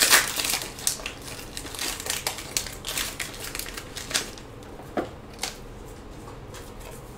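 Paper and card packaging crinkling and crackling as trading-card packs and their paper spacers are pulled from the box and opened. Dense crackling for about four seconds, then a few scattered clicks.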